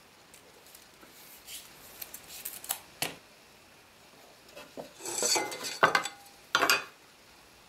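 Hand marking-out tools handled on a wooden workbench: light clicks and taps with a sharp knock about three seconds in, then metal clattering and scraping as a metal speed square is picked up and moved, ending in a short knock.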